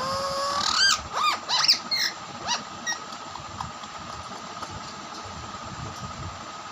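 Parakeets (Alexandrine and rose-ringed) screeching as they fight: one held call, then a quick run of short squawks that rise and fall in pitch, dying away about three seconds in.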